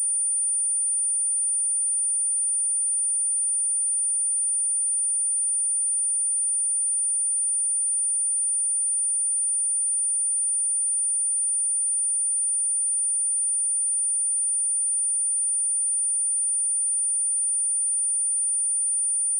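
A pure 9282 Hz sine-wave test tone, one steady high-pitched whistle held at constant pitch and level, used as a speaker test and speaker-cleaning tone.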